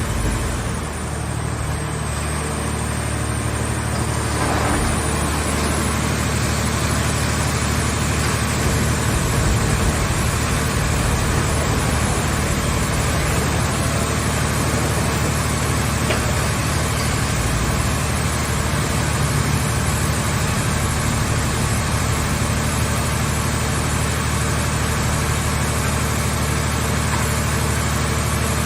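Scrap car body baler's power unit running steadily, a constant low mechanical drone like an idling engine.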